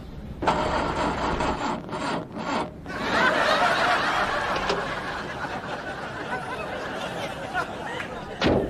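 Audience laughter that swells about three seconds in and slowly fades, after a few seconds of a rasping sound.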